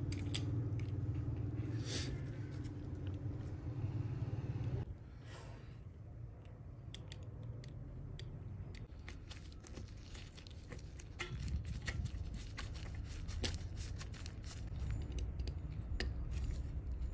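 Light clicks and ticks of steel tweezers touching and working parts of a quartz watch movement held in a case holder. The clicks come scattered and irregular, thickest in the second half, over a low rumble that drops away about five seconds in.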